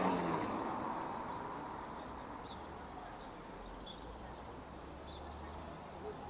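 A car passes close by at the start, its engine and tyre noise fading away over about two seconds. It leaves a steady low hum of city traffic with a few faint, short bird chirps.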